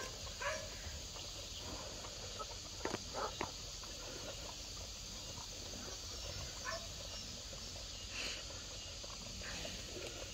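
Faint, steady chirring of insects such as crickets, with a few short, faint calls and clicks scattered through it.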